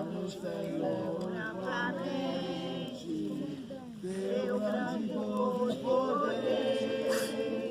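A group of people singing a worship song together, several voices in unison with long held notes.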